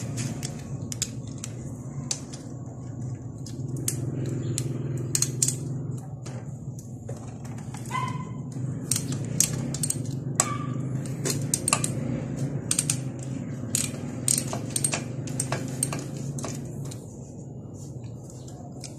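Wrench and metal parts clicking and clinking as the exhaust pipe is unbolted and taken off a Honda Wave 125, with a couple of short ringing clinks about halfway through. A low steady hum runs underneath.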